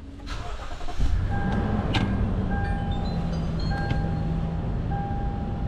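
Lexus GX460's V8 engine starting about a second in and settling into a steady idle. A series of short electronic beeps at several pitches sounds over it.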